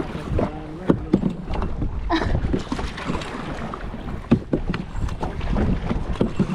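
Kayak being paddled: irregular splashes and knocks from the paddle strokes over a low rumble of wind on the microphone.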